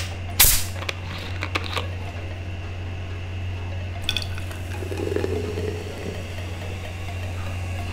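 Cola poured from a plastic bottle into a glass bottle, the liquid splashing steadily as the bottle fills, over a steady low hum. A few sharp knocks of bottle handling come in the first two seconds.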